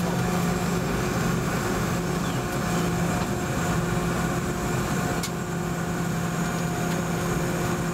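Boeing 717-200's rear-mounted Rolls-Royce BR715 turbofan engines running at taxi power, heard from inside the cabin as a steady drone and hum. A single brief tick sounds about five seconds in.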